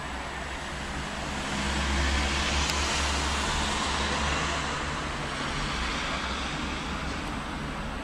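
Steady rushing noise over a low hum, growing louder about two seconds in and easing off again.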